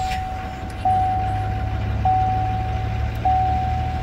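A 2018 L5P Duramax 6.6 L V8 turbodiesel idling just after start-up, heard from inside the cab. Over it, a chime in the cab sounds four times, one strike about every second and a quarter, each ringing out and fading.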